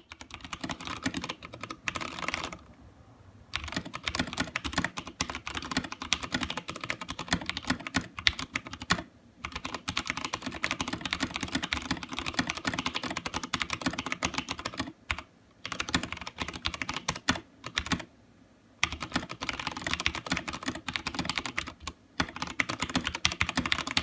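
Fast typing on a Durgod Taurus K320 mechanical keyboard with Cherry MX Brown switches: a dense run of key clacks with a few short pauses, recorded through a phone's built-in microphone.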